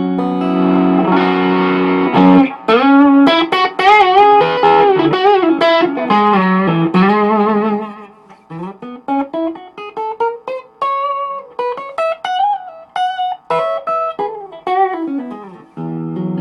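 Electric guitar with vintage single-coil Strat pickups played through a Sebago Double Trouble 25-watt 1x12 combo amp. The amp is on its distortion channel with the boost on, and the guitar's volume is turned down so the tone cleans up. A held chord gives way to single-note lead lines with string bends, played more softly in the second half.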